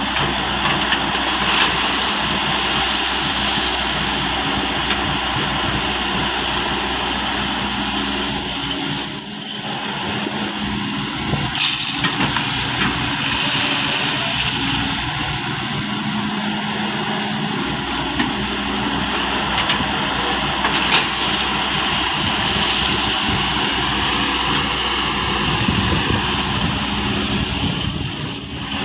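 Excavator engine running steadily while the machine works, with a few sharp knocks along the way.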